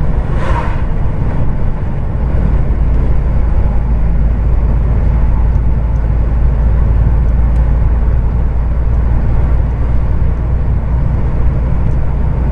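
Heavy truck on the highway: steady low drone of its diesel engine with road and tyre noise, and a brief hiss about half a second in.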